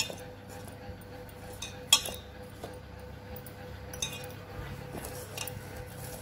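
Sharp metallic clinks against a steel mixing bowl as a hand works ragi (finger millet) flour with sprinkled water: a few scattered clinks, the loudest about two seconds in, over a faint steady hum.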